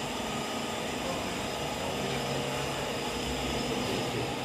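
Steady machine hum and hiss of workshop background noise, with no distinct event.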